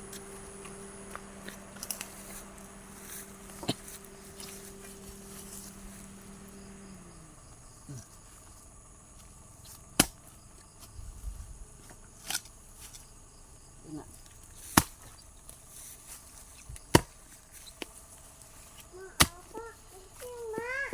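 Digging tool, a hoe or shovel, striking the ground about five times, roughly every two seconds, while a grave is dug. Before the strikes, a steady low hum winds down and stops about seven seconds in.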